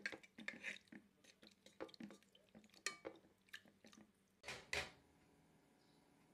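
Metal spoon stirring a thick, lumpy flour, milk and water mixture in a metal saucepan: a run of irregular scrapes and clinks against the pot, with two louder scrapes a little past the middle.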